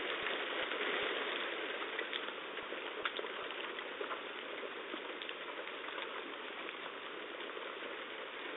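Heavy rain from a severe thunderstorm pouring steadily, with a few scattered faint ticks of impacts on top.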